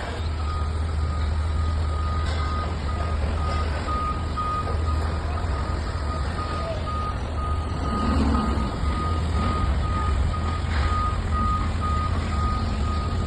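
A heavy vehicle's reversing or motion alarm beeps over and over above the low, steady rumble of a diesel engine running.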